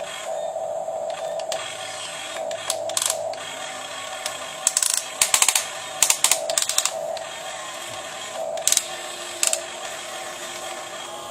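1:15-scale RC excavator's small electric motors whining in short pulses as it works. A cluster of sharp clicks and scrapes comes through the middle, and two more follow near the end.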